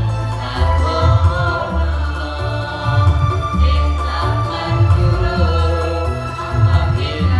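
A choir of men and women singing together, accompanied by an electronic keyboard with sustained low bass notes that change about once a second under the voices.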